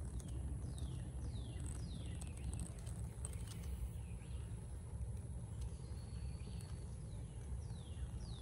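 A bird singing short falling whistles, repeated in runs of a few with pauses between. Under it run a steady low rumble and a thin, steady high whine.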